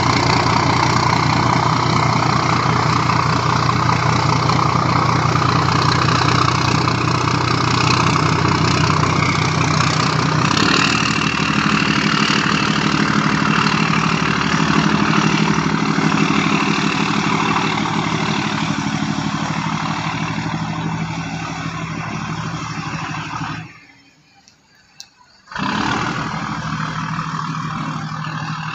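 Boat engine running steadily, its note changing about ten seconds in. The sound drops away almost completely for about two seconds near the end, then returns.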